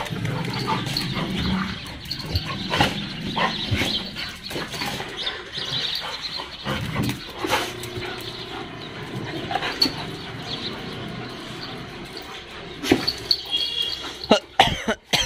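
A group of dogs playing together, with barking here and there. A brief high-pitched yelp comes near the end.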